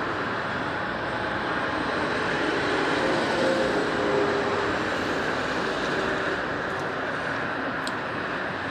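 Steady roar of motorway traffic, tyres and engines. It swells a little about three to four seconds in as an articulated lorry passes, with a faint engine hum in it.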